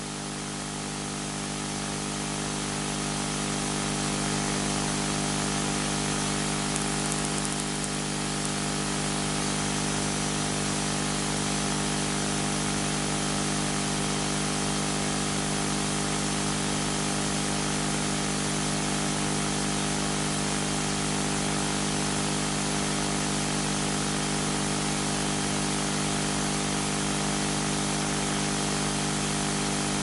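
Steady hiss with a low electrical hum from the microphone and room, with no other sound standing out. It swells over the first few seconds and then holds level.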